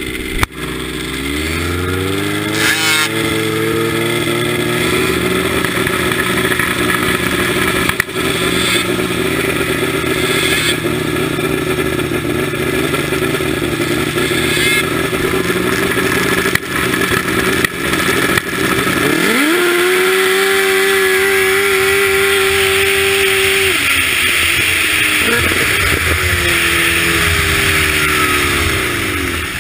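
Supercharged Yamaha RX-1 snowmobile's four-stroke inline-four engine, heard from on board. It revs up over the first few seconds and holds a steady high pitch. About twenty seconds in, the pitch drops away and climbs again as the sled runs down the drag strip, then falls and rises a few more times before easing off near the end.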